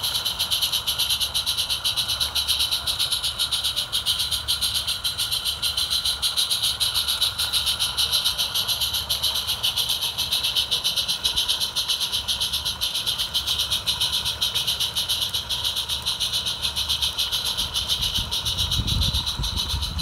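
Roundhouse Davenport live-steam model locomotive chuffing steadily and fast, about four to five exhaust beats a second, with a hiss of steam, as it pulls a short train. A low rumble comes in near the end.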